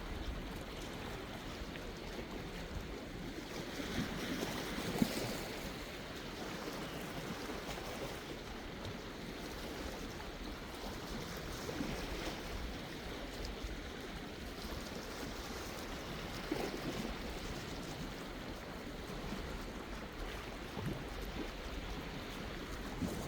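Sea waves washing ashore in a steady wash, swelling in surges every few seconds, the strongest about four to five seconds in.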